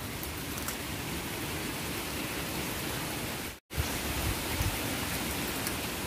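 Steady hiss of rain falling, cutting out completely for a split second a little past halfway, with a few low thumps just after.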